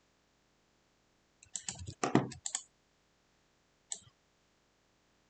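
Computer keyboard typing: a quick run of about a dozen keystrokes lasting just over a second, followed a little later by a single mouse click.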